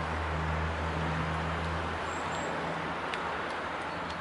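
Low, steady hum of a distant engine that fades away about halfway through, over an even outdoor hiss.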